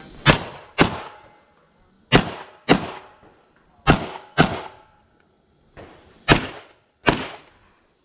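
Pistol shots from a compensated CZ Czechmate 9mm open pistol: eight shots fired as four pairs, each pair under a second apart, with a gap of a second or more between pairs.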